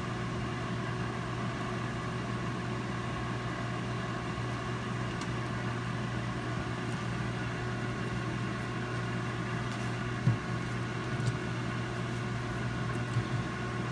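Air fryer running as it preheats: a steady fan-and-heater hum, with a few faint light knocks in the last few seconds as pieces are set on the wire rack.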